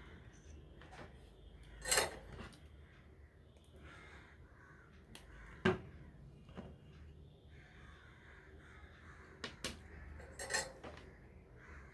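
A few sharp clicks and clinks of tools and small parts handled on a workbench while wiring up an audio player board. The loudest is about two seconds in, a sharp one comes near the middle, and a cluster of clinks follows near the end.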